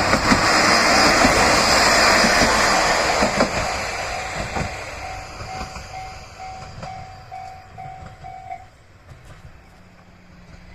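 Yodo Line KiHa 32 diesel railcar passing over a level crossing, loudest at first and fading as it moves away. The crossing's warning bell rings in even repeated dings and stops about eight and a half seconds in.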